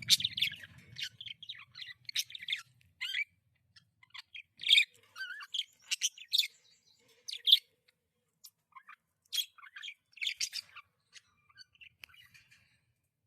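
Budgerigar chirping and chattering in short, irregular bursts of high calls and quick warbling glides, with brief pauses between them. A low hum underneath fades out in the first second or so.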